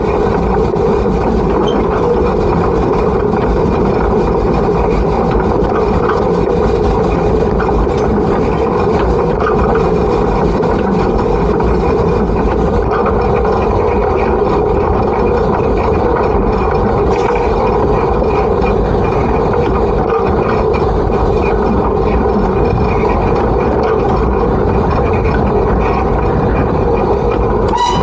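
Peckett industrial steam locomotive under way, heard close up from its coal bunker: a steady, loud rumble and hiss of the engine and train running, with no distinct beat.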